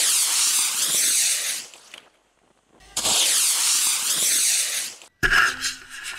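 Cluster of large solid-fuel model rocket motors burning with a loud, wavering rushing hiss for about a second and a half, then cutting off as the seat is launched; the same burn is heard again after a short quiet gap. Near the end, a rougher run of knocks and scraping.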